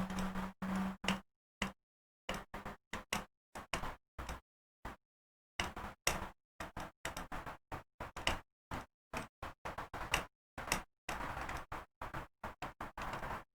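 Many short bursts of small clicks, taps and handling noise from hand-soldering work on a circuit board, each broken off by gaps of complete silence, some carrying a low steady hum.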